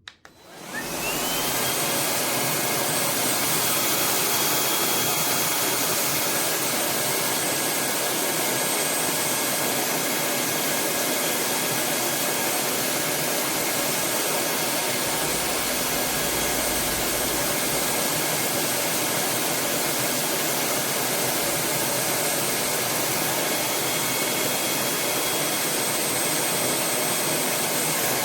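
Dreame Z30 cordless stick vacuum switched on with a click, its motor spinning up with a rising whine over about a second, then running steadily.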